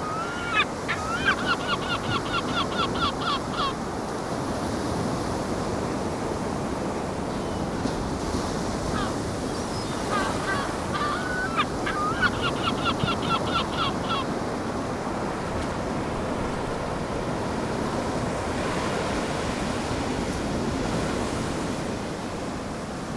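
Ocean waves washing on the shore in a steady wash, with a seagull giving two runs of rapid, repeated calls, one near the start and one about ten seconds in, each lasting three to four seconds.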